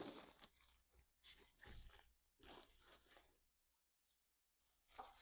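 Packaging being handled and pulled open as a boxed smart lock is unpacked, in four or five faint short noisy bursts.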